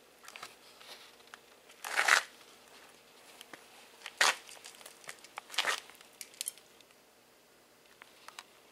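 Cat eating dry kibble from a metal bowl: faint crunching and clicks, with three louder rattles of kibble in the bowl about two, four and five and a half seconds in.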